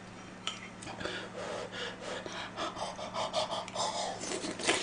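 A man huffing quick, short breaths in and out while eating a hot piece of fish cake from the stew: cooling the scalding bite and his mouth. The breaths start about half a second in and come in an irregular string of puffs.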